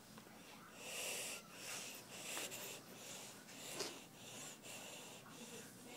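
A person's breathy wheezing and snorting close to the microphone, in repeated bursts about a second apart.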